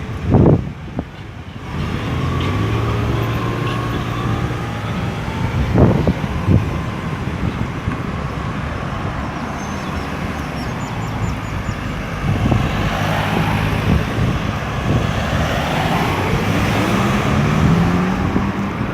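Road traffic: cars and trucks passing with a steady engine hum, and one vehicle speeding up near the end.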